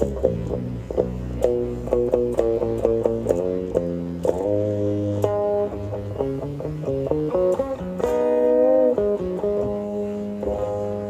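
Background music: a plucked guitar melody over a bass line, with a long wavering, bent note about eight seconds in.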